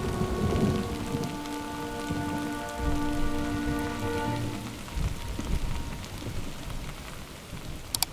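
Rain falling steadily, with sustained notes of background music that stop about halfway through.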